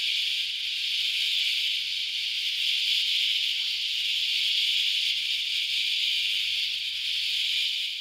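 Periodical cicadas (17-year, Brood X) chorusing: a steady, high-pitched shrill buzz that holds level throughout and fades out at the end.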